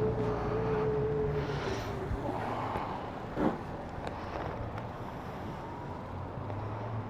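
Electric delivery bike's motor whining steadily, then fading out about a second and a half in as the bike slows to a stop, over a low traffic hum. One short knock comes about three and a half seconds in.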